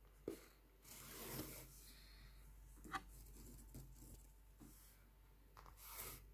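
Faint rustling and rubbing of hands working yarn through a stuffed crocheted toy, with two small clicks, one just after the start and one about three seconds in.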